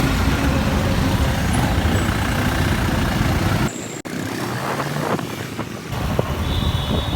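Road traffic in a Kathmandu jam: a steady rumble of vehicle engines and road noise. About halfway through the low rumble drops away suddenly, and lighter traffic noise carries on.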